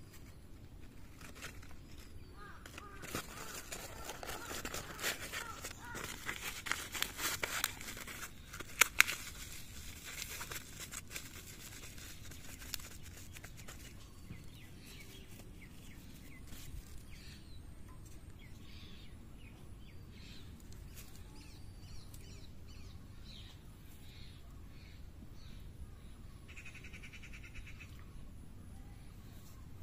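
Outdoor ambience: a spell of rustling and clicking handling noise with two sharp clicks in the middle, then a bird calling over and over in short chirps.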